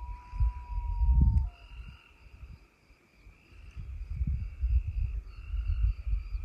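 A steady insect chorus, with a single held, slightly falling whistled note in the first second and a half. Irregular low rumbles of wind buffeting the microphone come and go, loudest near the start and again in the second half.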